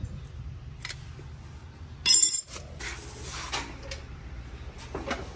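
A sharp metallic clink about two seconds in, then metal rattling and scraping as a long-handled steel floor jack is pulled across a concrete floor, over a steady low hum.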